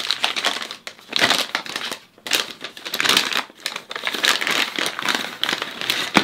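Paper wrapping being crumpled and rustled as hands pull it out of a cardboard box, in several bouts of crinkling with brief pauses between them.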